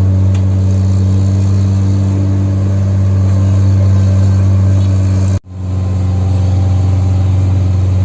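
Diesel engine of earthmoving machinery running steadily with a deep, even hum. About five and a half seconds in the sound cuts out abruptly for a moment, then returns.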